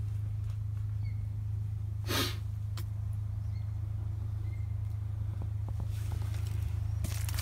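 A steady low hum, with one brief knock or rustle about two seconds in.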